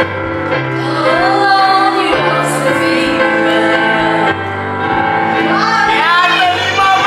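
A woman singing into a microphone over a karaoke backing track, both coming through loudspeakers.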